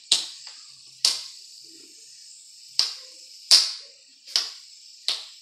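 Fidget spinner flicked into spin with a pencil: about six sharp clicks at uneven intervals, each trailing off in a short whir.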